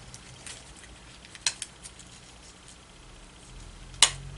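Cardstock being folded by hand along its score lines: a few light crackling clicks, a sharper click about a second and a half in, and the loudest, crisp click near the end.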